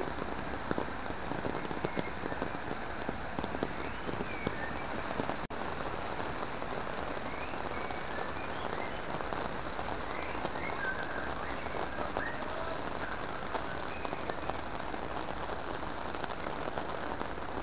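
Heavy rain falling steadily, with frogs giving short chirping calls throughout. The sound cuts out for an instant about five seconds in.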